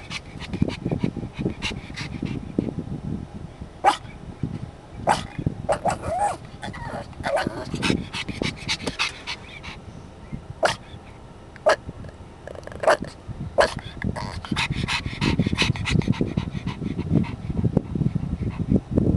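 Young black pug puppy inside a car, panting and giving short, sharp barks and yips every second or so. This is the pug's own odd, snorty-sounding bark.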